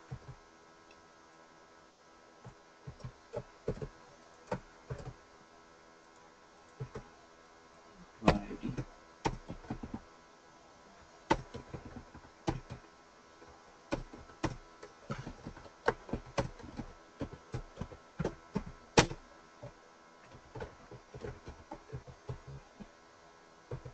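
Computer keyboard typing: scattered keystrokes in uneven runs with short pauses between them, a few strikes sharper than the rest.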